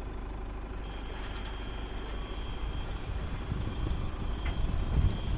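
Off-road vehicle driving, its engine and tyre rumble growing louder over the last couple of seconds.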